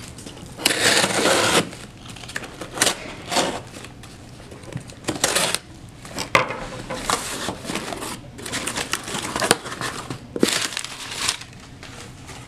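Packing tape being peeled and ripped off a cardboard box and the cardboard flaps being pulled open, a series of irregular scraping rips, the longest about a second in.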